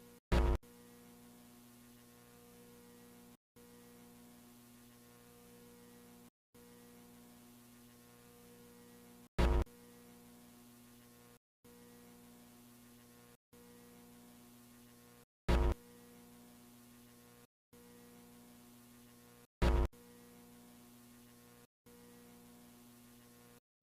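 A faint, steady electrical hum made of several tones, with a softer tone pulsing on and off beneath it, that cuts out for a split second every two to three seconds. Four short, loud bursts break through it: one just after the start, one about nine seconds in, one at about fifteen seconds and one at about twenty.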